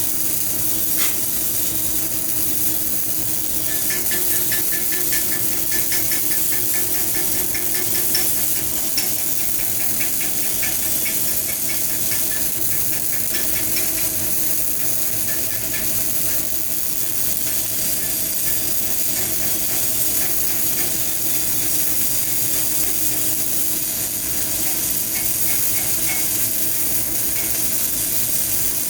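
CO2 MIG welding arc with solid wire, crackling and sizzling steadily as a bead is run, with a steady hum under it.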